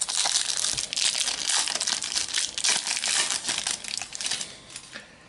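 Foil trading-card packet crinkling and crackling as it is handled and opened, dying away near the end.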